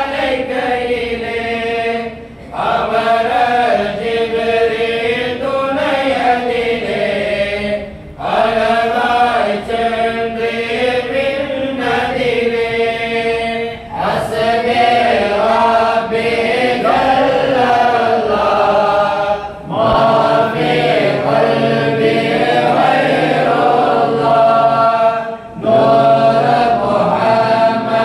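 A group of men chanting an Islamic devotional recitation together, in long melodic phrases of about five to six seconds with brief breaks for breath between them.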